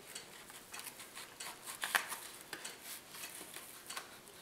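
Utility knife blade slicing through a grass scenery mat along a model railroad rail: faint, irregular scratchy ticks and scrapes, one sharper tick about two seconds in.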